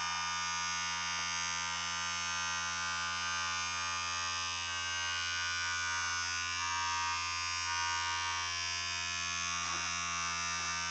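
Small vibration motor from an electric toothbrush, spinning an offset weight, running on a 9-volt battery inside a floating aluminium foil tray hull: a steady buzz that keeps the same pitch throughout.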